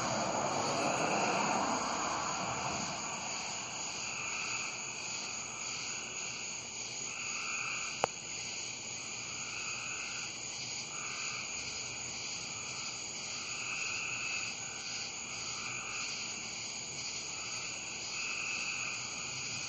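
Frogs calling in a chorus, their calls repeating about once a second over a steady high-pitched trill. A low rumble fades out over the first few seconds, and there is a single sharp click about eight seconds in.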